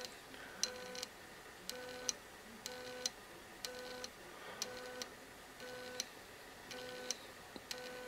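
1.8-degree stepper motor stepping in short bursts, each a steady buzzing tone lasting about half a second, repeated about once a second. Each burst is one rotary-encoder click sending the motor 200 steps, a full turn of its brass gear. A sharp click comes with each burst.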